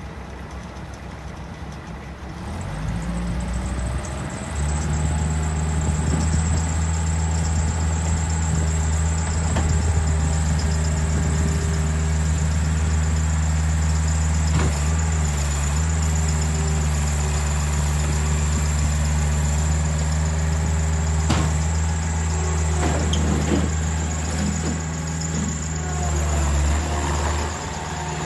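Bobcat 773 skid steer loader's diesel engine starting about two seconds in, then running steadily at a higher speed from about four seconds on, easing back near the end.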